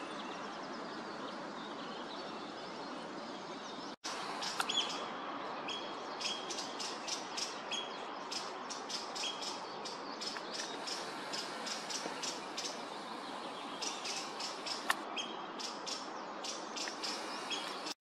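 Steady background hiss. From about four seconds in, a Eurasian oystercatcher calls in a long, rapid run of sharp, high piping notes, about five a second, with brief pauses.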